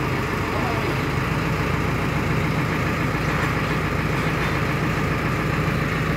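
Farm tractor's diesel engine running steadily at an even pitch.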